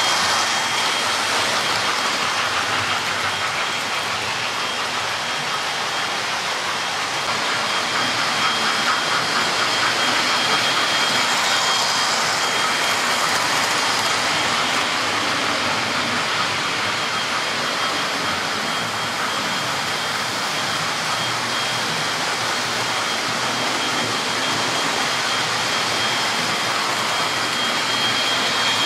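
OO-gauge model trains running on the layout's track: a steady whirr of small electric motors and wheels rattling over the rails, with a thin high whine held throughout.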